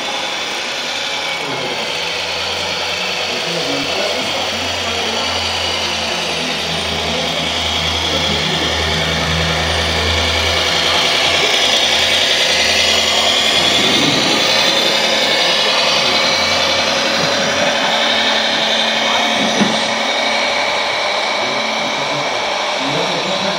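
Electric drive motor and gearbox of a radio-controlled 6x6 tipper truck whining as it drives, the pitch rising and falling with its speed. A low steady hum runs underneath for much of the time and fades out in the later part.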